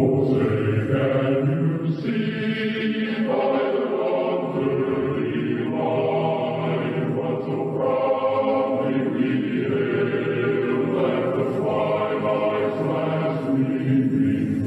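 Slow choral music: chant-like voices holding long chords that shift every two seconds or so.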